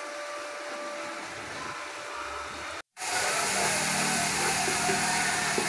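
Steady sizzling of paste frying in oil in a clay pot, stirred with a wooden spoon. The sound cuts out for an instant just before halfway, then returns louder.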